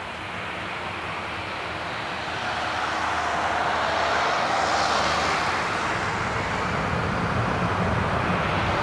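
Airbus A320 jet engines at take-off thrust during the take-off roll, growing louder over the first few seconds as the airliner accelerates along the runway, with a faint whine that rises in pitch partway through.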